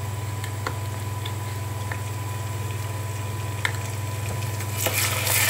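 Sliced onions frying in oil in a pan, with a few sharp taps of a wooden spatula over a steady low hum. About five seconds in, a louder sizzle sets in as ginger-garlic paste goes into the hot oil.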